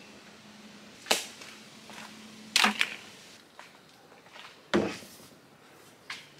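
Five sharp knocks and clacks of hard plastic being handled: one about a second in, a quick pair near the middle and one near the end. The one about five seconds in is a length of 3/4-inch PVC pipe knocking as it is picked up.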